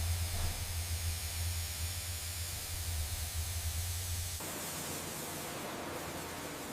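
Steady static-like hiss over a deep, even hum; the hum cuts off abruptly about four seconds in, leaving the hiss with a faint steady tone beneath it.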